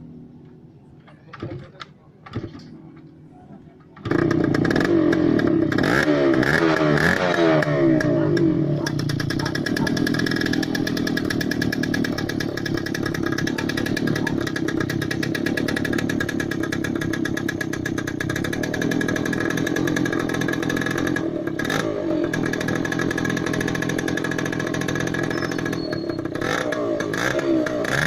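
Old scrambler motorcycle engine cold-starting, firing up for the first time after its restoration. A few short knocks, then the engine catches about four seconds in and runs loud and steady, blipped up and down just after it catches and again near the end.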